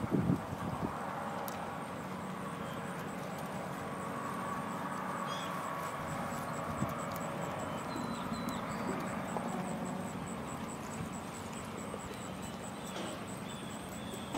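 A steady distant engine drone, even in level, with a faint steady hum in it.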